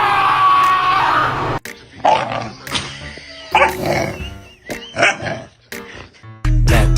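A dog making several short, irregular vocal sounds, between stretches of background music that cuts off about a second and a half in and returns near the end.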